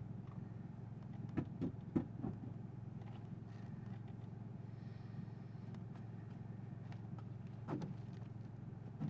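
Toyota GR Yaris's turbocharged three-cylinder engine idling steadily, heard from inside the car, with a few short knocks around a second and a half in and again near the end.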